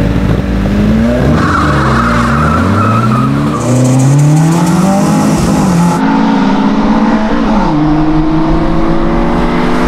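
Several car engines at full throttle together in a drag race from a rolling start in second gear. Each engine's pitch climbs, drops at a gear change and climbs again, several times over.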